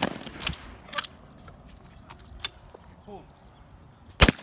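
Shotgun reports: fainter sharp reports about half a second and a second in, and one loud report near the end.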